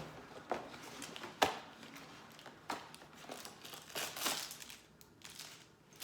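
Crinkling and tearing of packaging as a LEGO advent calendar's cardboard door is opened: irregular crackles with a few sharper snaps, the loudest about a second and a half in.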